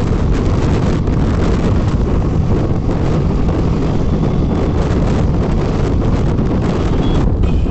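Loud, steady wind buffeting on the microphone of a motorbike riding at speed, with the bike's running engine and road noise beneath it.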